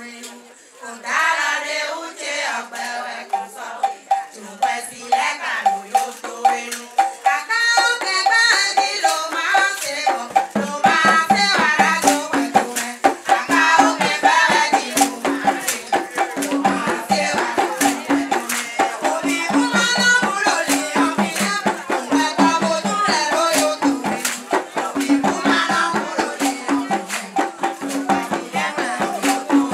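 A woman singing solo into a microphone; about ten seconds in a shaken rattle joins in a fast, steady rhythm, with a repeating low accompaniment beneath it.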